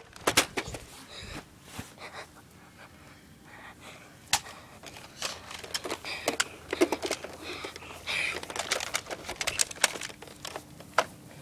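Irregular sharp clicks and knocks, some close together and some spread out, with short rustling noises between them.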